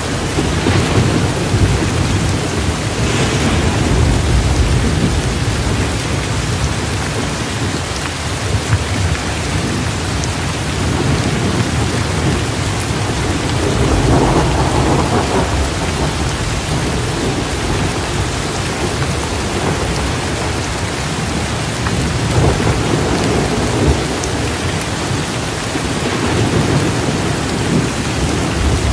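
Steady rain, with low thunder rumbling underneath and swelling several times, most strongly about fourteen seconds in.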